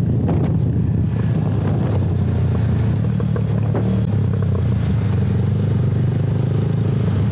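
Motorcycle engine running at a steady cruise, heard from the rider's seat, with road and wind noise.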